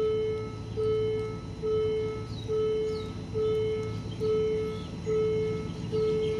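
Railway level-crossing warning alarm sounding a steady electronic tone in a regular on-off beat, a bit faster than once a second, the signal that a train is approaching. Short bird chirps sound over it.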